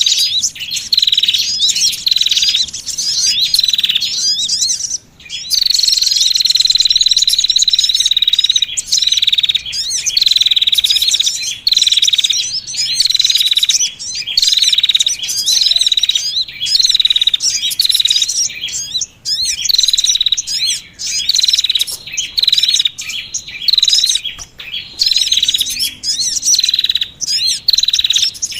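Bird-trapping lure recording of small songbirds calling: a busy, continuous mix of rapid high chirps and trills in short phrases that repeat about once a second, used to draw in small birds such as sunbirds.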